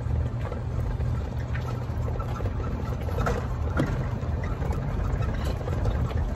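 Golf cart running as it is driven: a steady low rumble, with a few light clicks or rattles about three seconds in.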